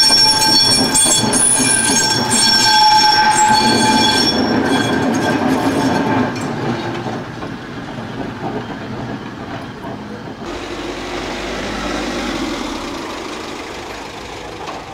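Vintage electric tram passing on street track, its wheels squealing through a curve in several high steady tones for about the first six seconds, then running on with a rumble of wheels on the rails as it comes close.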